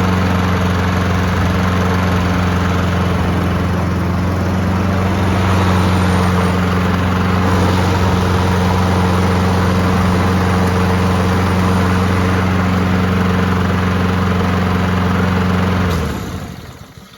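Honda HRR216 lawn mower's single-cylinder four-stroke engine running steadily, now starting and running after the fix. About sixteen seconds in, it is shut off and winds down to a stop.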